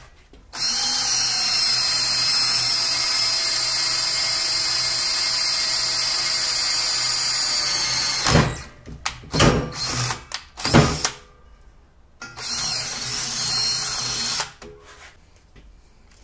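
Cordless drill boring a hole through steel C-channel, running at a steady pitch for about eight seconds. A few loud knocks follow, then a second, shorter run of the drill of about two seconds.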